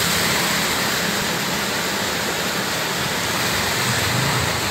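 Steady rushing noise of travel along a road under shallow floodwater: water spray from tyres and air rush, with a low vehicle engine hum underneath.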